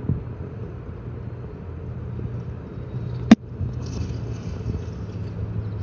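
A steady low hum with one sharp click a little past the middle.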